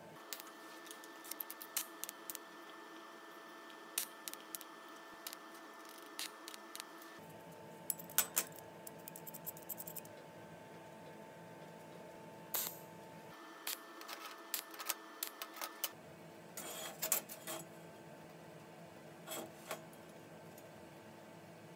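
Small stainless steel parts clinking and tapping against a steel welding table as they are handled and set down: scattered light metallic clicks, in small clusters, over a faint steady hum.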